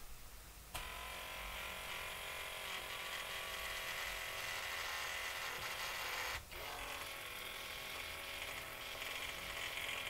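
Motor drive of an HO scale model railway turntable running as the bridge rotates, a steady electric whir. It starts about a second in, stops for a moment about six seconds in, then runs again.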